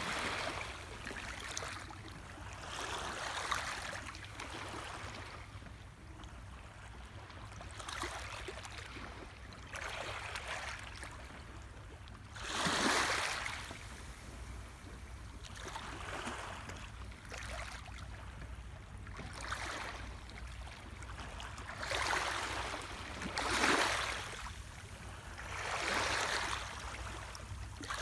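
Small sea waves lapping gently on the shore. Each wash of water swells and fades every couple of seconds, with a few louder ones about halfway through and near the end.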